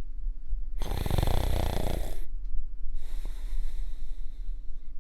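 A person snoring: one loud, buzzy snore about a second in, lasting about a second and a half, followed by a softer, airy breath out.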